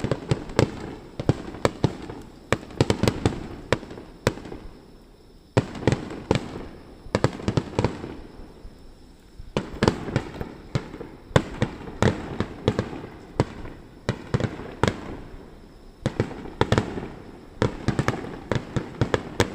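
Aerial fireworks bursting in quick volleys of sharp bangs and crackles, with short lulls about five and nine seconds in.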